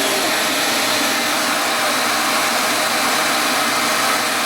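Dyson DC37 canister vacuum cleaner running steadily: a loud, even rush of air with a faint steady whine in it.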